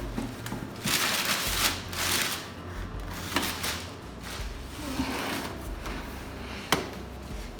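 Rustling and scraping handling noises, loudest in the first couple of seconds, with one sharp click near the end.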